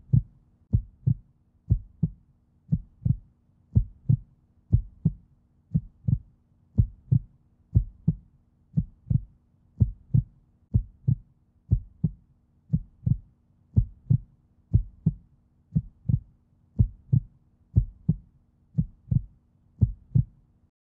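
Heartbeat sound effect: regular low thumps in a heartbeat rhythm over a faint steady hum, stopping abruptly near the end.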